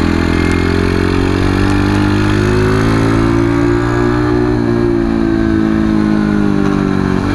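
Keeway RKS motorcycle's small single-cylinder engine running steadily while being ridden, its pitch rising gently and then easing off in the second half.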